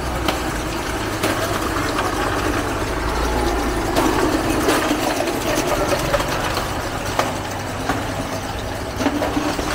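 An engine running steadily at idle amid busy market noise, with scattered sharp clicks and knocks.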